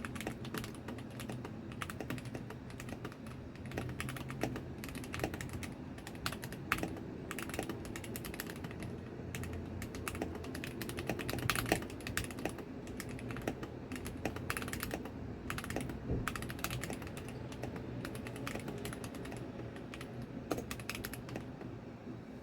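Typing on a GK61X mechanical keyboard with TTC Gold Pink linear switches and no case foam: a fast, irregular run of keystrokes that stops shortly before the end.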